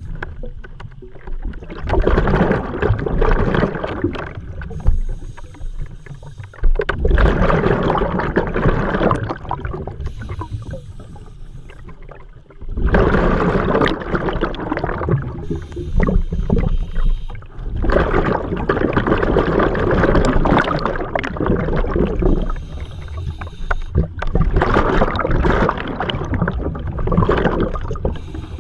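Scuba diver breathing through a regulator underwater: a short hiss on each inhalation, then a long rumbling, gurgling rush of exhaled bubbles, about one breath every five seconds.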